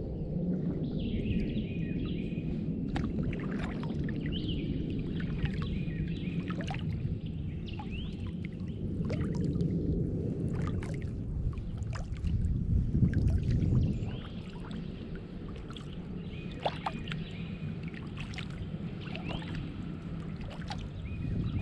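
Kayak being paddled on still water: paddle strokes dripping and splashing, with small clicks and knocks. A steady low rumble, loudest about two-thirds through, runs underneath. Birds chirp from the trees now and then.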